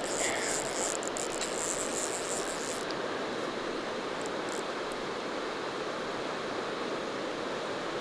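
Steady rush of river water flowing past granite boulders and a small cascade. A high, thin hiss runs over it for the first three seconds or so.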